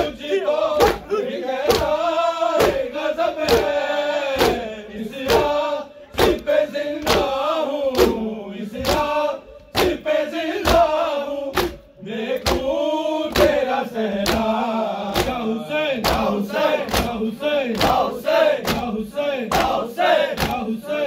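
Matam: a group of men beating their chests with open palms in unison, a steady beat of sharp slaps about two a second. Over the beat a crowd of men chants loudly together, the chanting breaking off briefly a few times while the slapping keeps on.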